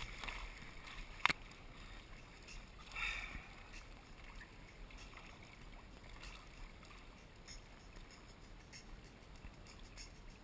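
Kayak paddle strokes: quiet splashing and swishing of the paddle blades in the water, with a single sharp knock about a second in and a louder splash about three seconds in.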